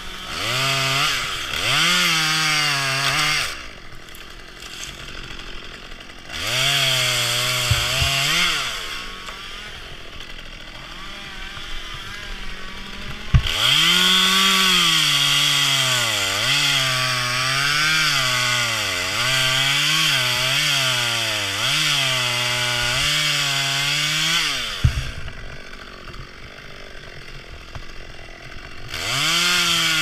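Top-handle chainsaw cutting maple limbs: two short revs, then a long cut of about eleven seconds in which the engine pitch repeatedly dips and recovers as the chain loads up in the wood, dropping back to idle between cuts and revving up again near the end.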